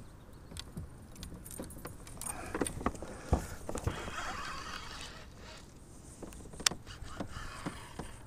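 Light clicks, clinks and taps of fishing tackle and kayak gear being handled while a pike is fought beside the boat, with a soft rushing noise for about a second midway.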